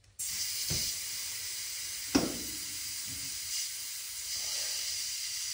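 Steady hiss of compressed air moving through the freshly installed front air shocks of a golf cart as the air system is tested. Two knocks stand out, the louder about two seconds in.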